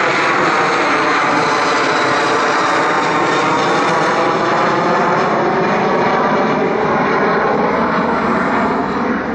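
Boeing 737 Next Generation jet's twin CFM56 turbofan engines at climb thrust just after takeoff: a loud steady roar overhead with a slow swishing shift in tone as the jet climbs away, easing slightly near the end.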